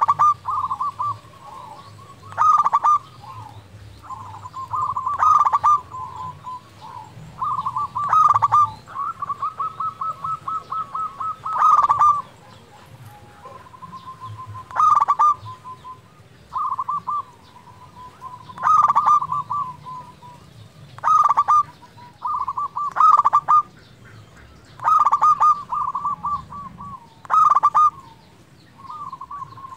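Zebra dove (perkutut) singing: phrases of quick staccato coos come every couple of seconds, about a dozen in all. A longer, even run of notes is held a few seconds in. The bird is in full, persistent song ('gacor').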